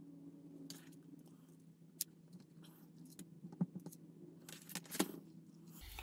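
Faint, scattered clicks and taps of small model parts being handled during LED placement, over a low steady hum that stops shortly before the end.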